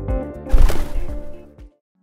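Electronic background music with a steady beat that ends on a loud crash about half a second in, which fades away and cuts to silence near the end.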